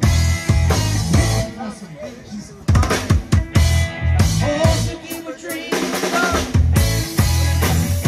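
Live rock band playing an instrumental passage, the drum kit prominent with hard snare and bass drum hits over bass and guitar.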